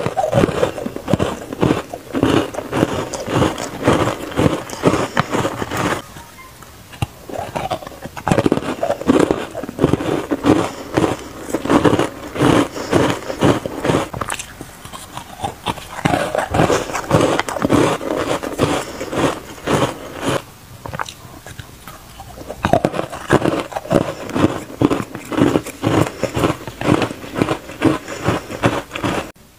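Chewing a mouthful of matcha-powder-dusted ice: rapid runs of crunching, with three short pauses between runs.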